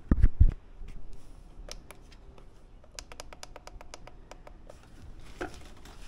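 Two heavy handling knocks right at the start, then a quick run of sharp clicks, about seven or eight a second, from about three seconds in, as a portable cordless tyre inflator is handled and set. Its pump motor is not running.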